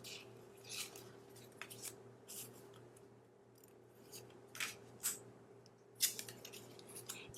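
Faint, crisp rustles and light taps of cardstock pocket cards being handled and shuffled, a dozen or so short sounds spread unevenly, over a steady low hum.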